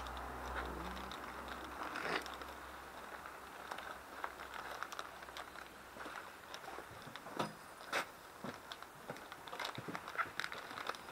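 Crinkly wrapper being handled in the hands: rustling and crinkling with several sharper crackles. A low rumble fades out about six seconds in.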